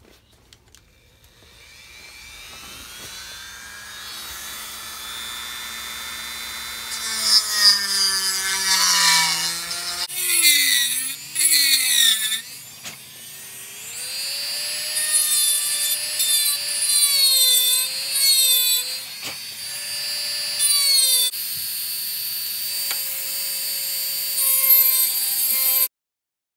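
Handheld Dremel rotary tool spinning up with a rising whine, then grinding into rosewood to open the mounting-pin hole through a plane tote's horn. Its pitch dips and wavers as the bit bites and is eased off, and it cuts off suddenly near the end.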